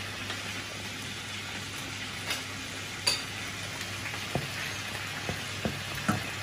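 Minced garlic sizzling gently in oil in a stainless steel pan that is still heating slowly on a small stove. Near the end come a few light taps of a wooden spatula stirring against the pan.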